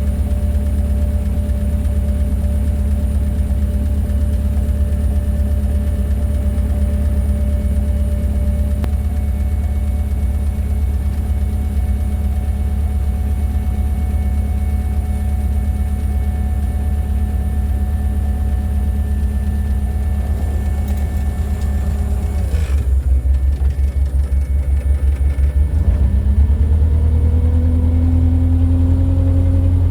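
Aircraft pushback tug's engine idling steadily. About 23 seconds in its pitch drops, then from about 26 seconds it rises and holds higher and a little louder as the tug takes up load for the pushback.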